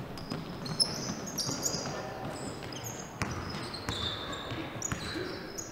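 Basketball game sounds on a hardwood gym court: sneakers squeaking in many short high chirps, with a basketball bouncing in a few sharp knocks and voices in the background.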